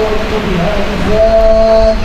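A man's voice chanting Arabic maulid verse in a melodic, drawn-out way, holding one long note from about a second in.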